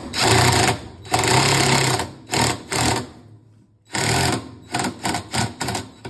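Cordless drill with a 3/8-inch socket running in short bursts to tighten the agitator bolt of an old Whirlpool/Kenmore top-load washer. There are two runs of about a second each and a couple of short blips, then after a pause another run and a quick series of brief pulses near the end as the bolt snugs down.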